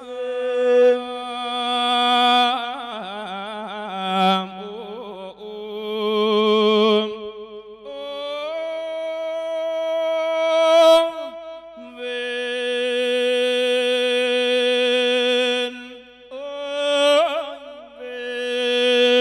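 Thai Buddhist monk singing a lae sermon chant in a long wordless melismatic passage: several long phrases of held notes with a wide vibrato, sliding between pitches, with short breaths between them.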